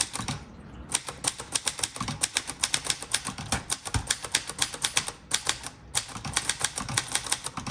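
A 1961 Royal Forward manual travel typewriter being typed on quickly: a fast run of sharp keystroke clacks, several a second, broken by two short pauses.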